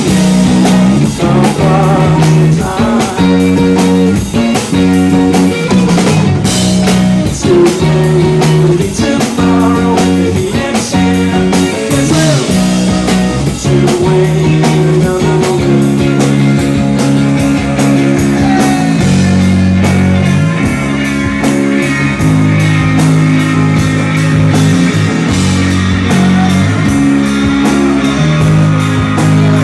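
Live rock band playing an instrumental passage: electric guitars and bass over a steady drum kit beat.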